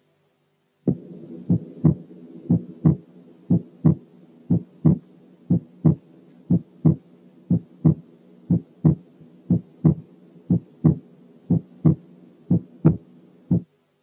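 Recorded human heart sounds, about one beat a second, each a lub followed by a dub. The second heart sound is slightly wide because it is split into two components very close together: a narrowly split S2 of aortic and pulmonary valve closure. A faint steady hum lies underneath.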